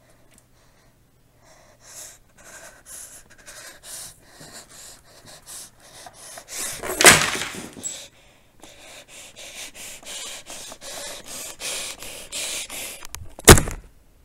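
Rustling and scraping as a folded cardboard game board and paper money are handled and moved over a table. A sharp knock comes about seven seconds in, and a louder one near the end.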